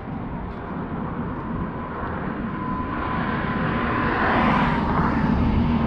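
Vehicle noise that swells steadily to a peak about four and a half seconds in, with a faint steady whine riding on it.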